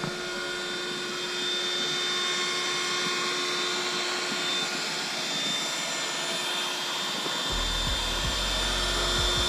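Small electric air pump running steadily, blowing air through its hose into the valve of a PVC inflatable boat to inflate it; a constant motor hum with a steady whine.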